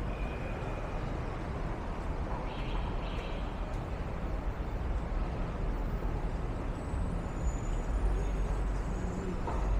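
City street traffic noise: a steady wash of passing vehicles with a low rumble, growing slightly louder in the second half.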